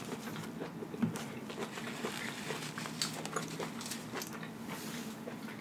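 Soft, scattered clicks and rustles of hands handling a paper napkin and crab legs at a table, over a faint steady hum.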